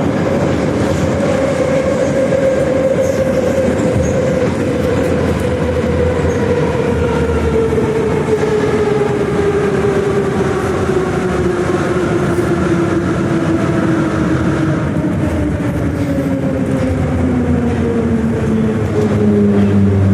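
Moscow metro 81-717.5M "Nomernoy" train running with wheel and track rattle, its motor whine falling steadily in pitch as the train slows. A low steady hum comes in near the end.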